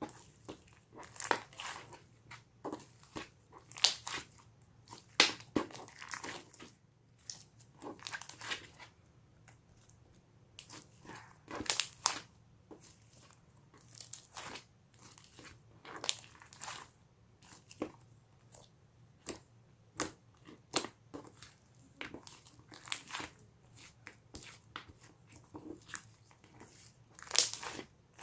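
Homemade clear slime being squished and pressed by hand, giving irregular crackling clicks and pops with short pauses between.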